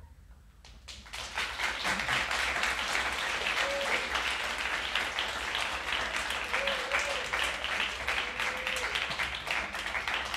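Audience applauding, swelling in about a second in and then holding steady as a dense patter of many hands clapping.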